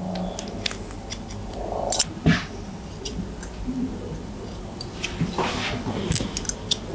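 Barber's scissors snipping through hair: a scattering of short, sharp snips that come quicker near the end, with a soft rustle about five seconds in.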